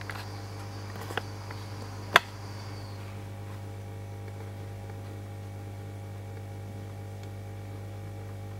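Steady low electrical hum, with a faint high whine that stops about three seconds in and two sharp clicks about one and two seconds in.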